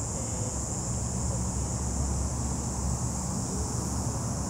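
Wind rumbling on the microphone, with a steady high-pitched drone of insects behind it.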